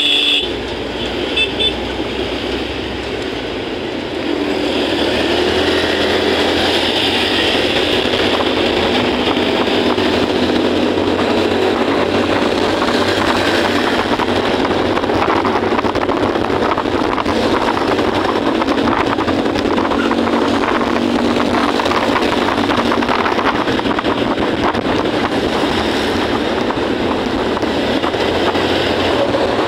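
Motorcycle riding through city traffic: the engine running under steady road and wind noise, which grows louder about four seconds in as speed picks up. Short high beeps sound at the start and again about a second and a half in.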